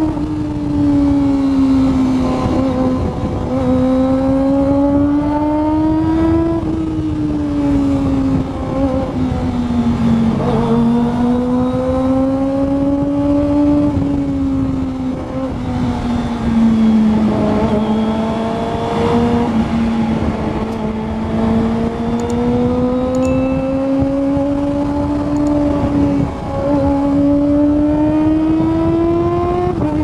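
Kawasaki Ninja ZX-25R's 249 cc inline-four engine screaming at high revs under way. Its note drifts slowly up and down, with a few short dips in pitch and one sharp dip and recovery near the end.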